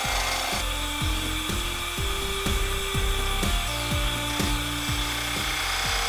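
Background music with held notes and a steady beat about twice a second, over a wood lathe running while a turning tool cuts the outside of a spinning spalted hickory cup.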